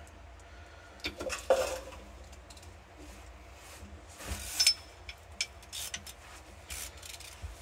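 Scattered metallic clinks and taps of a long ratchet and crow's-foot wrench being fitted onto a hydraulic hose fitting, over a low steady hum.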